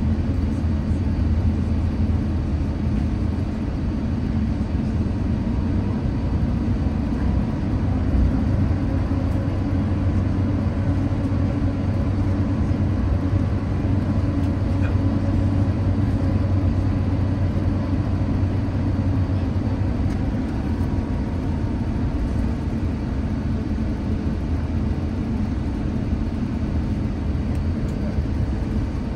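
Cabin sound of an Airbus A350-900 taxiing, heard inside the cabin: its Rolls-Royce Trent XWB engines running at taxi power, a steady low drone with faint steady whining tones above it.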